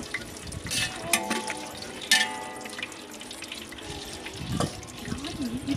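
Cashews frying in ghee in a large aluminium pot: a steady sizzle, with a metal ladle scraping and clinking against the pot a few times in the first couple of seconds.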